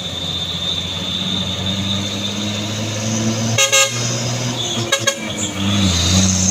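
A heavy truck engine running steadily on a steep climb, its pitch shifting about six seconds in. A vehicle horn toots once about three and a half seconds in and twice quickly about five seconds in.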